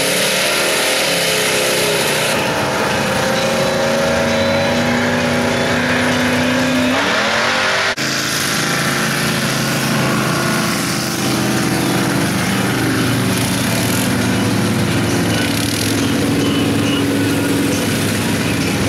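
Big-block V8 of a lifted Chevy mud truck running and revving as it drives through mud, its pitch rising and falling. The sound breaks off abruptly about eight seconds in and carries on.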